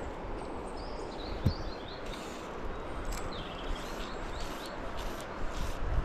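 River water running in a steady rush, with a small bird chirping in short bursts several times over it. A single soft thump comes about one and a half seconds in.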